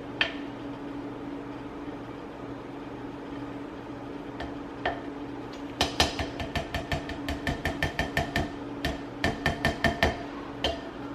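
A spoon knocking against a bowl while rice and peas are stirred: a few single knocks, then a quick run of about three to four knocks a second from about halfway in, over a steady low hum.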